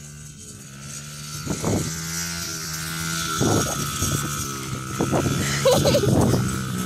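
Small dirt bike engine running as the bike rides across the field toward the listener, growing louder over the first couple of seconds, its pitch rising and falling with the throttle.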